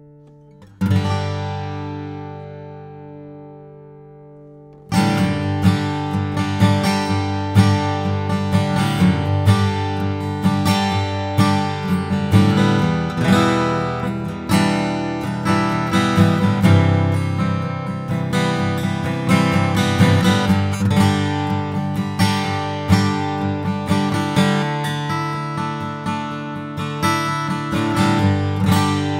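Martin D-28 dreadnought acoustic guitar (Sitka spruce top, rosewood back and sides) being strummed. One chord is struck about a second in and left to ring out, then steady rhythmic strumming of chords starts about five seconds in.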